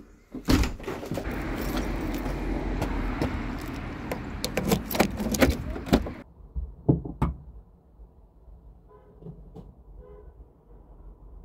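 Door handles and latches clicking as a house door and then a car door are opened, over outdoor traffic noise. About six seconds in the sound turns suddenly quieter and muffled, with two more clicks.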